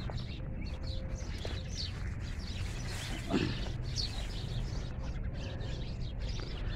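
Small birds chirping now and then over a steady low rumble; about three seconds in, one louder call falls in pitch.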